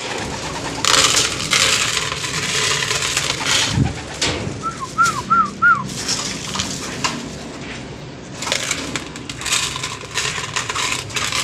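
Mixed pigeon feed grain poured from a small plastic cup into a long plastic trough feeder, the seeds rattling and hissing onto the plastic in two pours, the second starting about eight seconds in. About five seconds in, a bird gives four quick chirps.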